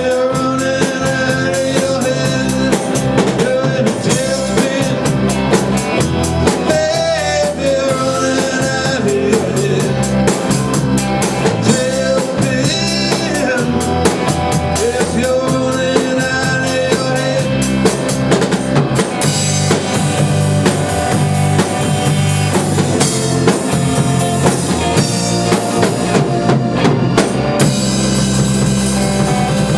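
Band playing a rock song at a sound check, with a drum kit keeping a steady beat under sustained guitar or keyboard notes.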